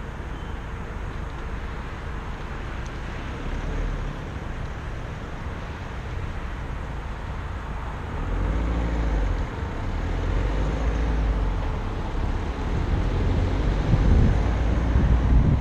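Car driving through a car park and then picking up speed on the road, picked up by a GoPro Hero Session action camera mounted on the windshield. A steady low engine and road rumble grows louder and gustier from about halfway through, as wind begins to buffet the camera's microphone.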